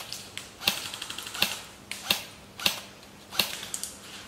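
Airsoft rifle firing single shots: about six sharp cracks, evenly spaced about three-quarters of a second apart.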